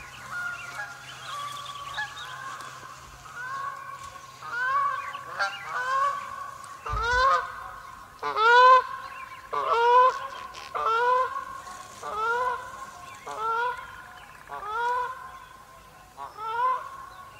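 Canada geese honking over and over, about one call a second. Each honk slides up in pitch and then holds. The calls grow louder from about four seconds in.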